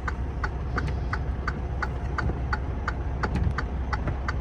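Steady, even clicking about three times a second, over the low rumble of a stopped vehicle's idling engine heard from inside the cab.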